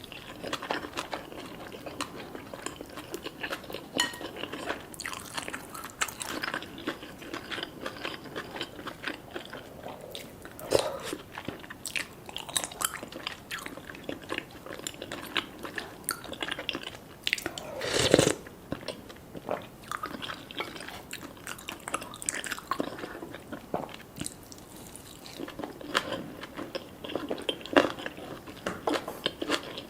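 Close-miked eating: a person biting and chewing food, with a run of small crunchy clicks and wet mouth noises. One louder noise stands out about two thirds of the way through.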